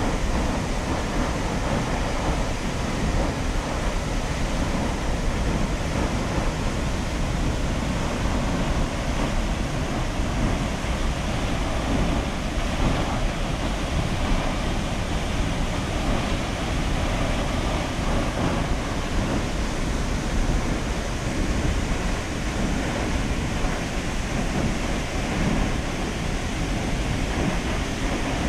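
Large waterfall pouring down a rock face into a gorge: a loud, steady rushing that does not change.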